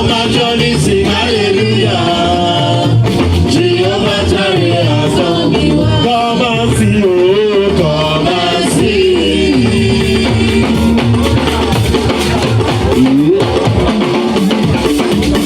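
Live church praise music: a band with guitar and drums playing under a sliding melody, with singing.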